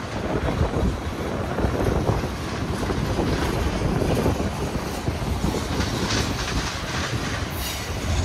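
Freight train cars rolling past at trackside: a steady rumble of steel wheels on rail with irregular clacking over the rail joints.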